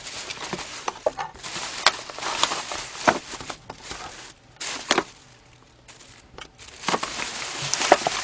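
Thin plastic delivery bag rustling and crinkling as it is unpacked, with light clicks and knocks of small plastic containers being set down on a table. The rustling drops away for a couple of seconds around the middle.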